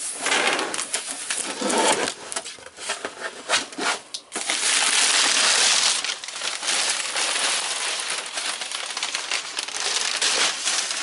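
Brown kraft packing paper crinkling and crackling as it is pulled out of a cardboard box by hand, with many sharp crackles and a longer, louder stretch of steady crumpling from about four to seven seconds in.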